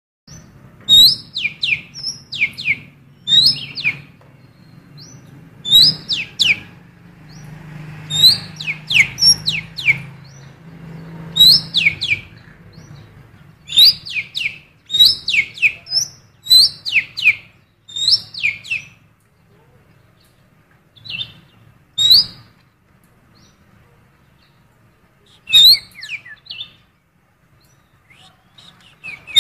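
A cucak keling bird calling over and over in short, sharp notes that sweep downward, in quick groups of two or three. The calls are taken from the female oriental magpie-robin (kacer), a repertoire used to lure or stir up male magpie-robins. A low hum runs under the calls for the first dozen seconds, and the calling thins out for a few seconds past the middle.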